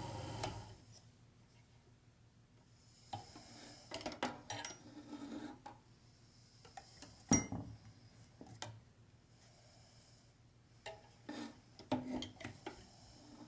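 Scattered metallic clicks and rubbing as steel grooming shears are handled at a sharpening machine, with one sharp click about seven seconds in.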